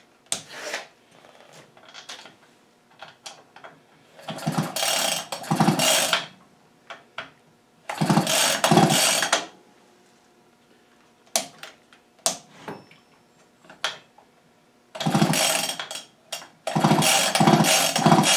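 Husqvarna 55 chainsaw's recoil starter pulled several times in groups, the rope whirring out and the engine turning over fast without firing, with small clicks of handling between pulls. It won't catch because the ignition gives no spark.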